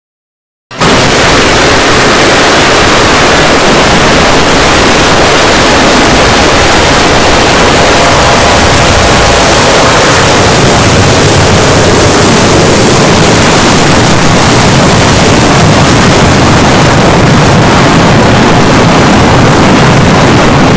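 Jumpscare sound effect: a sudden, extremely loud blast of heavily distorted, clipped noise that starts under a second in and holds at full level without let-up.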